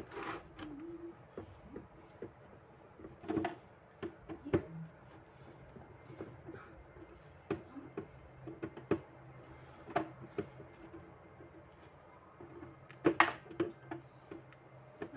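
Screwdriver working screws out of a thermal receipt printer's plastic case: scattered small clicks and taps of metal on plastic, with a handful of louder knocks.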